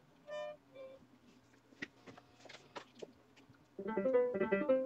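Digital piano keyboard played, several notes at a time, coming in loudly about four seconds in. Before that, a short harmonica note near the start and a few soft clicks and knocks.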